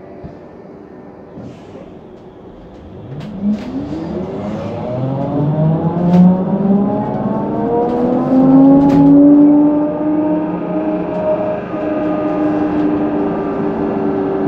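Electric traction drive of a HESS Swisstrolley 4 trolleybus whining as it pulls away: several tones rise together from about three seconds in, then level off into a steady pitched hum, with a few sharp clicks along the way.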